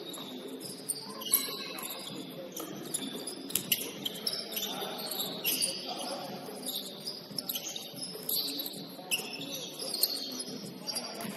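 Basketball shoes squeaking on a hardwood gym floor during play: many short, high-pitched squeaks one after another, with a few sharp thumps among them.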